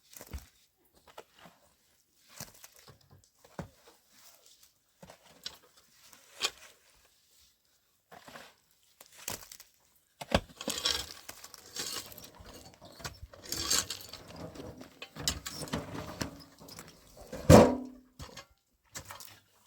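Scattered rustling and light knocks, as of things being handled. They are sparse at first and busier in the second half, with one loud knock near the end.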